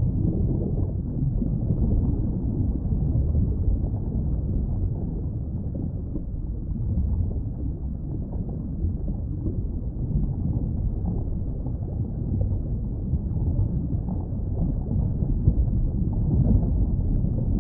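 Underwater ambience: a steady, muffled rumble and wash of water with no high sounds in it.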